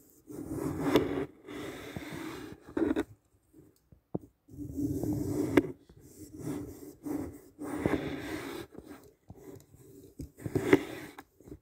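Knife slicing down through a block of glitter-coated dry floral foam, making crunchy, rasping cutting sounds in several separate strokes with short pauses between them.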